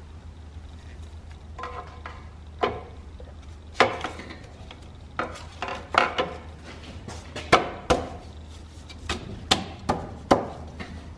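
Metal clutch parts clinking and knocking against the flywheel as the clutch and pressure plate are fitted by hand: about a dozen irregular sharp knocks, some with a brief metallic ring.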